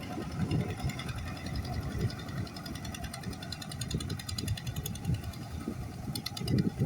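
An engine running, with a fast, even ticking over an uneven low rumble.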